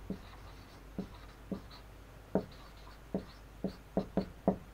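Marker writing on a whiteboard: about nine short, separate strokes at an uneven pace, coming closer together near the end.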